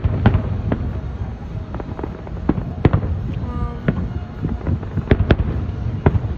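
Fireworks display going off: irregular sharp bangs, about two a second, over a steady low rumble.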